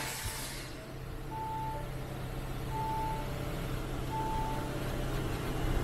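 Reversing or parking warning beeps: three even electronic beeps, each about half a second long, one every second and a half or so, over a steady low hum.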